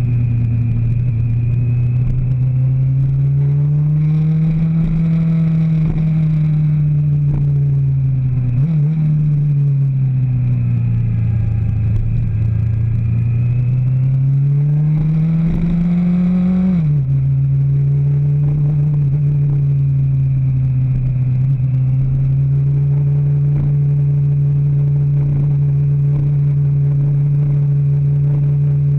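A road vehicle's engine running close up at speed, its pitch rising and falling with the throttle. About two-thirds of the way through it drops abruptly, as in a gear change, and then runs at a steady pitch.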